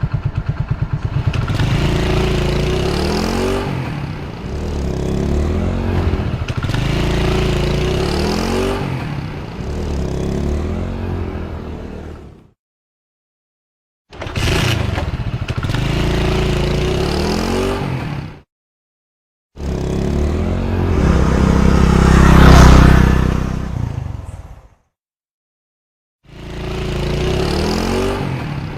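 Honda motorcycle engine accelerating through the gears, its pitch climbing and dropping at each shift, in several separate takes split by sudden cuts to silence. About three-quarters of the way through it swells to its loudest and then fades, as a bike passing close by.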